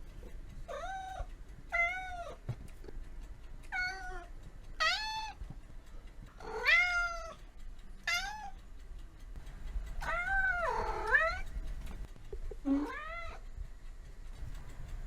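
Domestic cat meowing repeatedly: about eight separate meows with gaps between them, one longer drawn-out meow a little past the middle.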